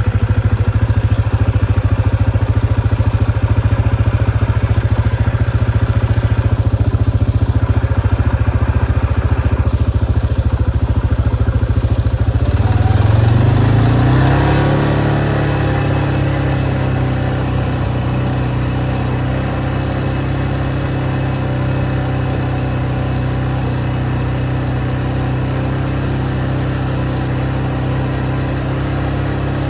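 Motorcycle engine running steadily under way. About 13 seconds in, the engine note rises in pitch, then settles at a steady, slightly quieter note.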